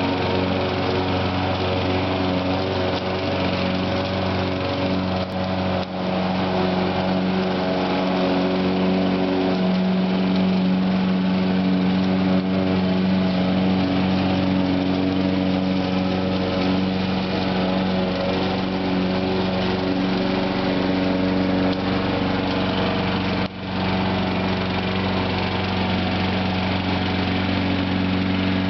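Lawn mower engine running steadily at an even speed, with two brief momentary dips in level.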